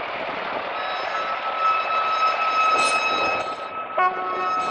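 Trial truck working up a steep, loose slope: a steady noise with a high-pitched whine that drops out about three and a half seconds in, and a sharp knock about four seconds in.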